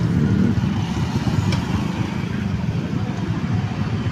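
Motorcycle and car engines running, a steady low rumble of traffic with no single vehicle standing out.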